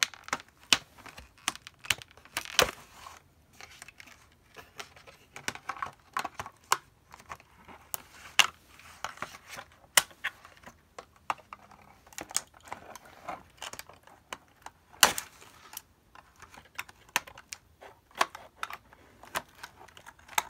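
Scissors snipping the wire twist ties that hold a plastic toy playset to its cardboard packaging, heard as irregular sharp clicks and snaps with small plastic knocks in between.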